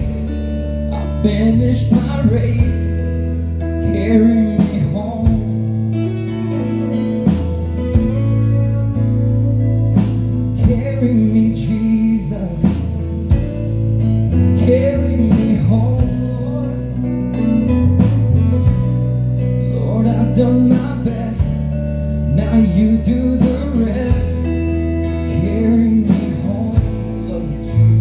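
Live band playing an instrumental passage of a gospel song: acoustic and electric guitars over held low bass notes, with bending lead-guitar notes.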